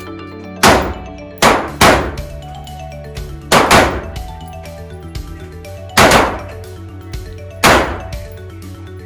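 Sig Sauer M400 AR-15-style rifle fired at an indoor range, seven shots at an uneven pace with a pair close together about a second and a half in and another near four seconds, each ringing off in the range hall. Background music plays underneath.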